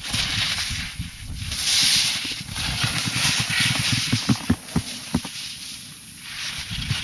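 Wind buffeting the camera's microphone: an uneven low rumble with surges of hissing. A few sharp knocks come a little past the middle.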